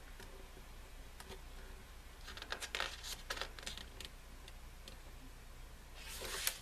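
Pages of an album photo book being handled and turned: a cluster of soft paper rustles and clicks about two to four seconds in, then a short swish of a page near the end.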